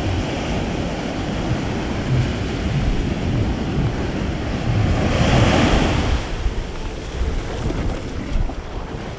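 Small waves breaking and washing up a sandy beach, with wind buffeting the microphone. One wave's wash swells loudest about five seconds in, and the sound fades out near the end.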